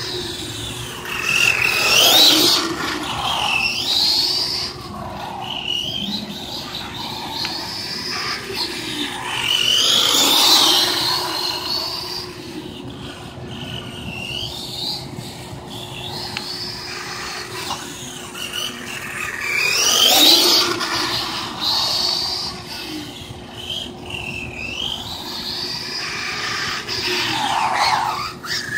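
Electric motor of a Redcat Volcano EPX 1/10-scale RC monster truck whining as the truck drives, rising and falling in pitch as it speeds up and slows. The loudest runs come about two, ten and twenty seconds in.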